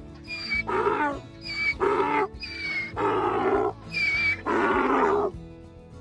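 Donkey braying: four hee-haw cycles, each a high, piercing in-breath followed by a rougher, lower out-breath, ending about five seconds in. Background music plays underneath.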